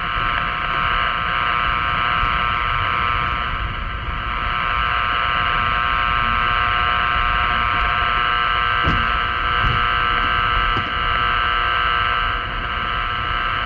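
Powerline interference received on a 50 MHz radio in AM mode: a steady buzz from the radio's speaker, with a few short clicks about two-thirds of the way through. Car road rumble runs underneath.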